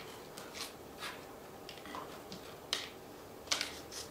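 Faint handling sounds from hands setting up a hoya cutting for propagation: a few light, scattered clicks and rustles, the sharpest a little under three seconds in.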